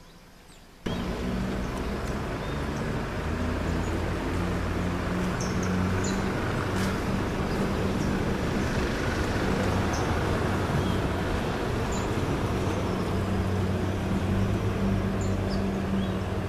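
A motor vehicle's engine running steadily with a low hum, cutting in suddenly about a second in, with a few short high chirps above it.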